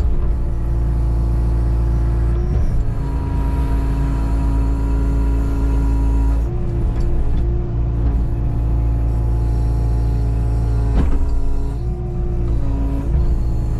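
Kubota KX019-4 mini excavator's three-cylinder diesel engine running under load, heard from inside the cab, with a steady hydraulic whine that changes pitch several times as the boom and bucket are worked. A couple of sharp knocks come from the machine, about two and a half seconds in and again near eleven seconds.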